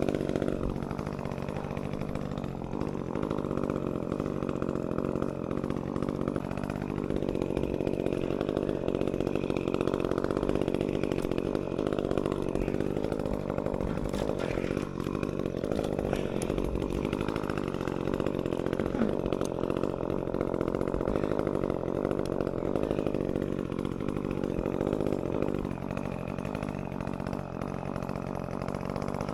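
Chainsaw running at high revs, its engine pitch dipping and recovering about four times.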